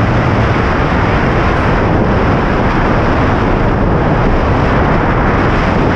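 Loud, steady wind rushing over the camera microphone of a tandem paraglider in flight.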